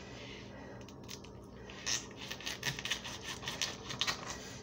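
Serrated kitchen knife cutting through the plastic wrap of a whole raw chicken, with a quick run of short scratchy rasps starting about a second in.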